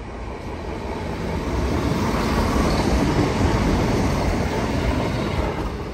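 East Midlands Railway passenger train passing over the level crossing: a rumble of wheels on rail that swells to a peak midway and then fades as it goes by.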